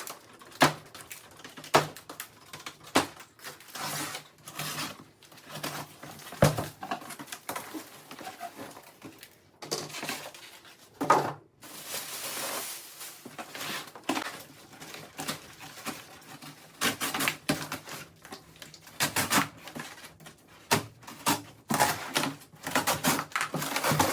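A cardboard shipping box being opened and unpacked by hand: a busy, irregular run of clicks, knocks and rustling of packaging.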